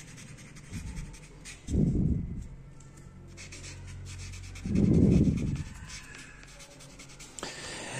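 Marker pen writing on paper: faint scratchy strokes as the letters are drawn. There are two louder, low whooshes about two and five seconds in.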